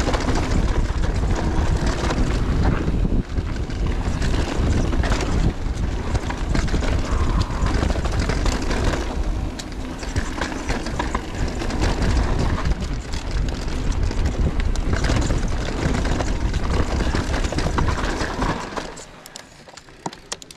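Mountain bike descending a dirt trail at speed: wind buffeting the microphone over tyre noise, with frequent knocks and rattles from the bike over rough ground. It falls away sharply near the end.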